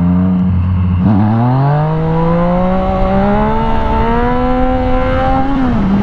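Yamaha FZ-09's three-cylinder engine pulled hard in first gear for a wheelie: about a second in the revs dip, then climb steadily for some four seconds before the throttle is shut near the end and the note falls back to a steady lower pitch. Wind noise runs underneath.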